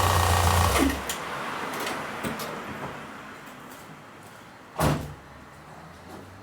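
Ford EcoSport's engine running, then switched off about a second in, its hum dropping away. A few light clicks follow, then a single loud thump about five seconds in.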